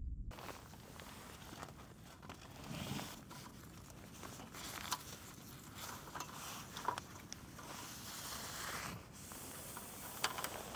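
Nylon carry bag rustling and being unzipped as a folding wooden slat table is pulled out, with a few light clacks of the slats, one sharper near the end.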